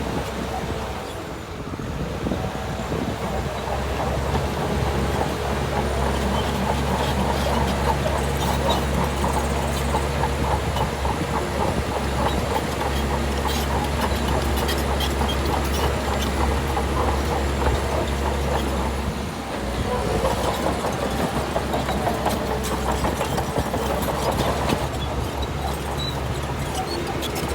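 Crawler bulldozer's diesel engine running under load, with a steady low drone and the fast clatter of its steel tracks. The sound eases briefly about two seconds in and again near nineteen seconds, then picks up again.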